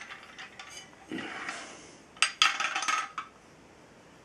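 Metal drill-press parts handled: the toothed column rack and table bracket of a WEN 4210 drill press clink and rattle, with a short clatter of sharp clicks about two seconds in.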